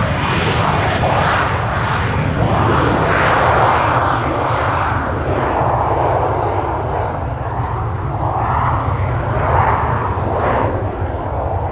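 The twin Pratt & Whitney Canada JT15D turbofans of a Cessna 560 Citation V run at takeoff power through the takeoff roll and lift-off. The jet noise is steady and loud, and its high fan whine fades as the sound grows duller while the aircraft draws away.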